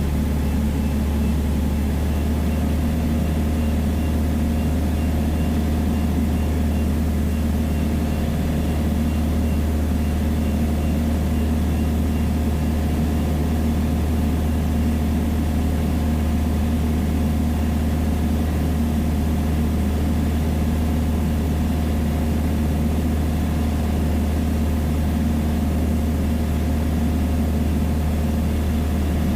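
Piper Dakota's six-cylinder Lycoming O-540 engine and propeller droning steadily in cruise, heard inside the cabin, with an even low hum and a few steady higher tones.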